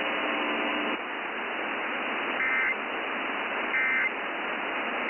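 Radio static hiss broken by two short harsh buzzing data bursts about 1.3 seconds apart, with a third starting at the very end: the Emergency Alert System end-of-message code that closes the warning. A faint steady tone under the hiss stops about a second in.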